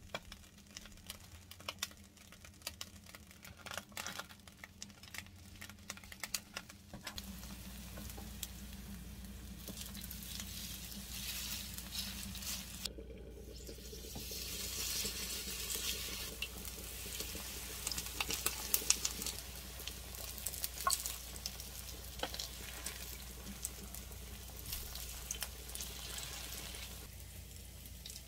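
Battered minari (Korean water parsley) and vegetable pancake sizzling in hot oil in a nonstick frying pan, with light clicks and taps as a wooden spoon presses and spreads it. The sizzle grows louder partway through.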